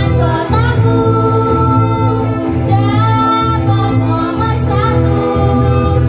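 Children singing a jingle into microphones with a band of electric guitars and drums, amplified through PA speakers; the sung line has long held notes over a steady low bass.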